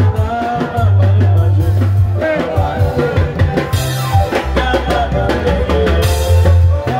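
Loud live African band music through a PA: a heavy bass line and drum kit, with a male voice singing into a microphone over it.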